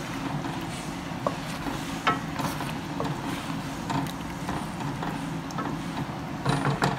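Wooden spoon stirring a chunky chicken and vegetable stew in an enameled cast-iron Dutch oven, with a few light knocks against the pot and a louder cluster near the end, over a steady low hum.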